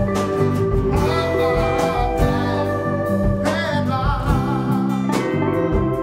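A small band playing live: electric bass and acoustic guitar, with a man singing over them.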